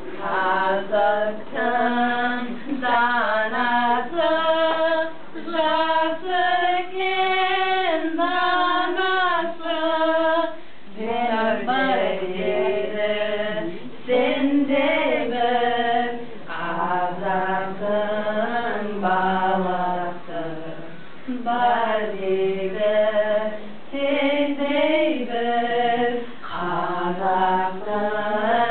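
Three women singing a song in Kazakh together, unaccompanied, in phrases of held notes with short pauses between them.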